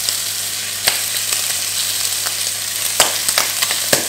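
Bacon and mini pork sausages sizzling in a frying pan, a steady hiss with a few sharp clicks at about one, three and four seconds in.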